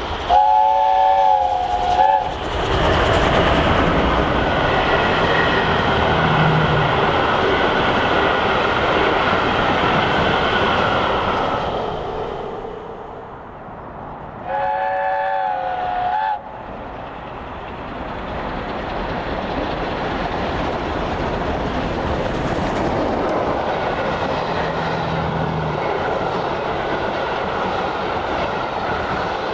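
Steam locomotive chime whistle sounding twice, each blast a chord of several notes lasting about two seconds, first near the start and again about halfway. Around the blasts runs the steady noise of a steam-hauled passenger train passing at speed, with wheel clatter on the rails. The noise dies down before the second blast and builds up again after it.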